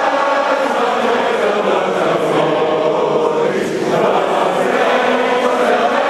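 A large group of people singing together, loud and steady, many voices in unison.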